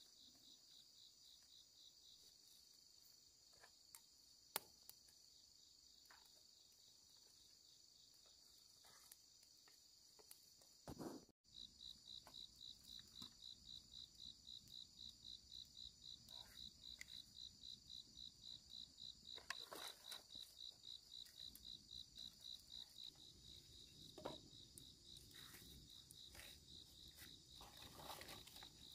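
Insects chirping in a steady, high pulsing trill of about three pulses a second, fainter at first and louder after an abrupt break about eleven seconds in. A few faint knocks and taps sound now and then.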